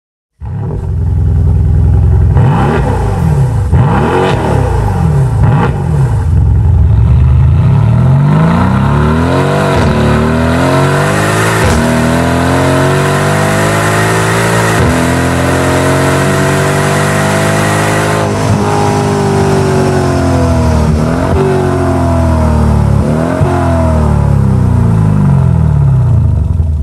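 Mercedes-AMG C63 (W205) twin-turbo V8 through an Akrapovic Evolution Line exhaust. First a few quick sharp revs, then long pulls through the gears: the pitch climbs and drops back at each shift, with a crack at some of the shifts.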